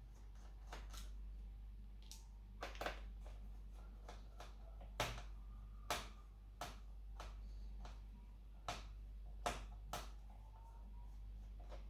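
Irregular light clicks and taps of small tools and plastic parts during laptop disassembly, about a dozen spread unevenly, over a low steady hum.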